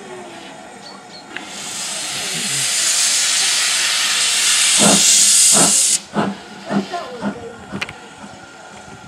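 Ivatt Class 2MT steam locomotive 46447 blowing steam from its open cylinder drain cocks: a loud hiss that builds over a couple of seconds and then cuts off suddenly. Slow exhaust chuffs, about one every half second or more, come in under the hiss near its end and carry on briefly after it stops, as the engine draws forward.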